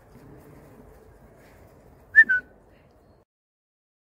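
A young wolf gives one short, high squeaky whine in two notes, the second slightly lower, about two seconds in. The sound cuts out about a second later.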